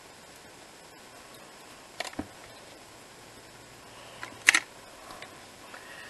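Sharp clicks as hands handle small craft magnets and folded black cardstock on a table: two light clicks about two seconds in, then a louder click about four and a half seconds in.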